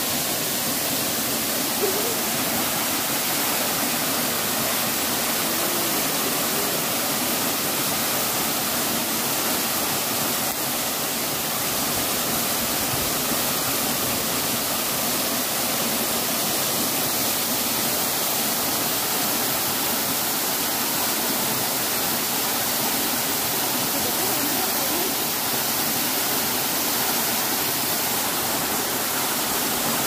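Two waterfalls pouring down a rock face into a pool: a steady, even rush of falling water.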